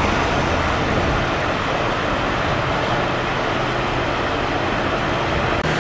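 Diesel engines of Scania P280 fire engines running slowly in street traffic: a steady low rumble mixed with road noise, and no siren sounding.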